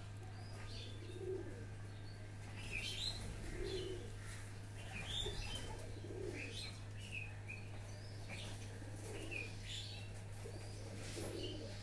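Birds calling: a low call repeated every two to three seconds, with scattered short high chirps, over a steady low hum.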